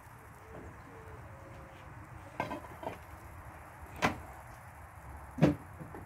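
A few sharp knocks over a steady low background noise: a quick pair about two and a half seconds in, another a second and a half later, and a final one near the end that is the loudest.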